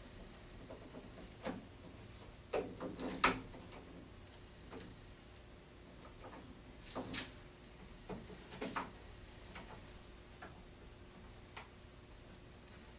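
Scattered light clicks and taps of a metal door latch being handled and held against the door edge to mark out its position, the loudest about three seconds in.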